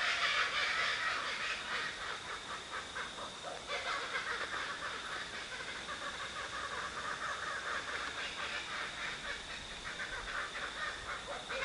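Many birds calling over and over, with a steady high-pitched tone running underneath.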